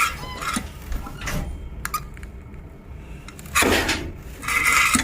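Hand-operated metal tube crimping machine being worked: a few clunks and scrapes of the handle and metal parts, with the longest bursts near the end.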